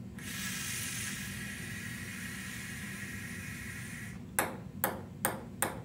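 Steady hiss of breath blown hard through plastic tubing into a small funnel holding a ping-pong ball; the blowing stops about four seconds in. A ping-pong ball then bounces on a hard surface, the bounces coming quicker and quicker.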